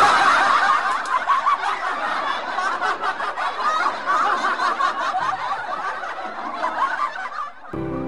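Laughter, a long stretch of giggling and chuckling. It gives way abruptly to gentle instrumental background music near the end.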